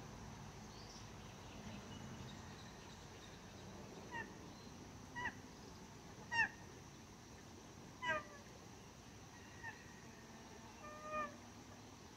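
Nene (Hawaiian geese) calling: about six short, soft calls a second or two apart, starting about four seconds in, over faint background noise.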